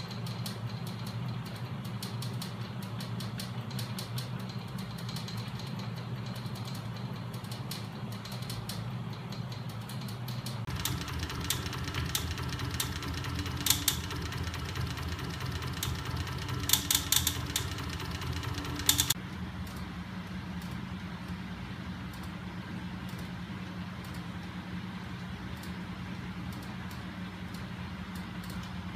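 Homemade magnet engine rig running on its DC electric motors: a steady mechanical hum with fast, light ticking from the mechanism, and a few sharper clicks in the middle stretch. The tone of the hum shifts twice.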